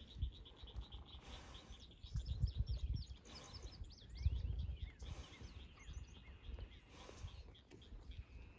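Faint outdoor ambience: small birds chirping, with a quick run of short high chirps about three to four seconds in, over irregular low rumbles.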